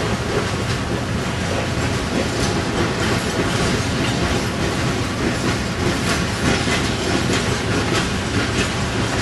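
Freight train of boxcars rolling past at a grade crossing, its steel wheels clicking irregularly over the rail joints above a steady rolling noise.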